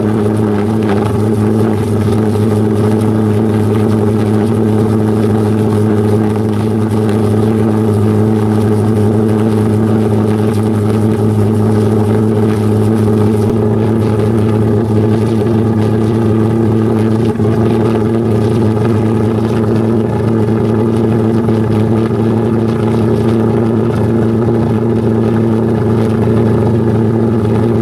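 Large homemade straight-tube valveless pulse jet engine running steadily on gasoline: a loud, continuous drone that holds one pitch.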